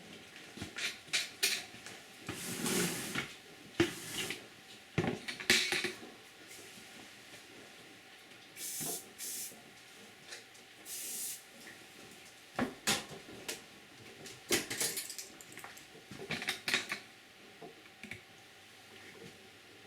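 Irregular knocks and clatter of equipment being handled. About nine and eleven seconds in come short hissing bursts like a spray bottle.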